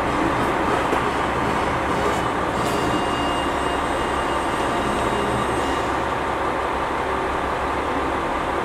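Steady noise of trains standing at a railway station, a low hum under an even hiss with no sharp events.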